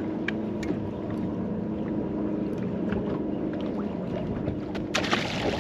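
Bass boat sitting on open water: a steady low hum with faint ticks and slaps of small waves against the hull. About five seconds in there is a short, loud rushing noise.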